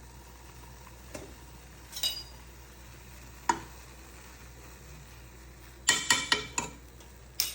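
Spoon clinking against a pot and dishes while ingredients are added to the milk: a few single clinks, then a quick run of several clinks about six seconds in and another near the end. Under it runs the faint steady hiss of the lit gas burner.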